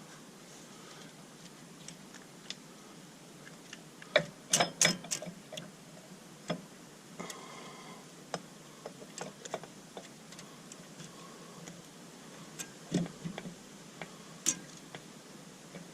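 Metal hand tools clinking and knocking on tractor parts during mechanical work. A quick cluster of sharp clanks comes about four seconds in, then single knocks are scattered through the rest, with a brief squeak near the middle.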